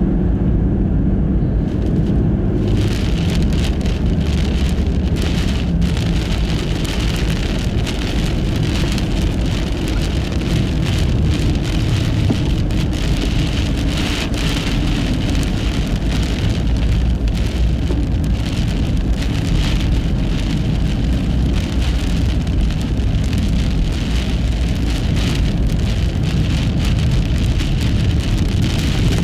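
Nissan Fuga Hybrid driving on a snowy road through a blizzard on studless tyres: a steady low rumble of tyre and road noise under a hiss, with frequent small ticks.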